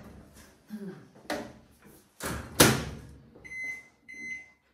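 Microwave oven door opened with a few knocks and clunks, then shut with a loud clunk about two and a half seconds in. Two short electronic beeps from its keypad follow near the end as it is set to run.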